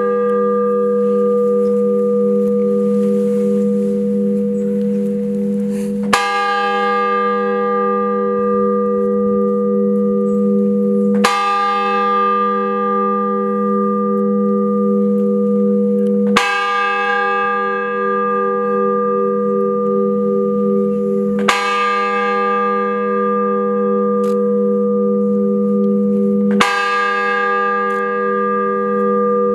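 A single large church bell tolling slowly, struck about once every five seconds, five strokes in all, each ringing on with a long deep hum into the next: a mourning toll.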